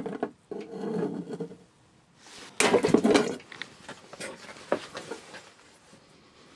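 Glass rubidium lamp bulb crunching and cracking as it is broken under water in a plastic tank: a sharp crack at the start, then crunching that is loudest about three seconds in, with a few single clicks after. The crunch of the glass is louder than any reaction of the small amount of rubidium metal inside.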